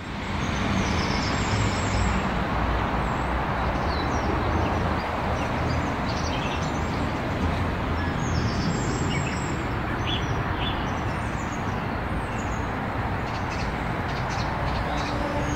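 Birds chirping and singing over a steady, low rushing noise.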